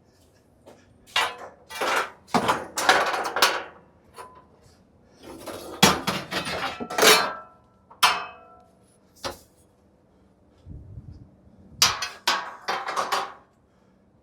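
Hard objects knocking and clattering as they are handled, set down and shuffled about, in three irregular bunches of sharp knocks with short quiet gaps between.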